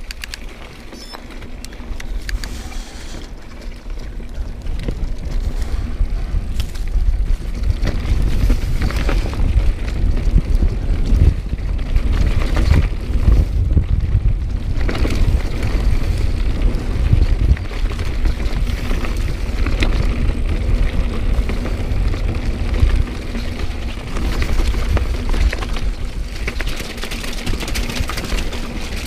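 Calibre Bossnut mountain bike rattling and clattering over loose rocks on a rocky descent, with many sharp knocks, under a constant low wind rumble on the action-camera microphone. Quieter for the first few seconds, then louder and busier from about four seconds in as the trail gets rougher.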